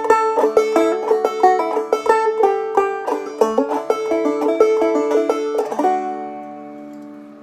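Banjo played clawhammer style, picking a reel in a quick run of plucked notes. A little before six seconds in it ends on a final chord that rings out and fades away.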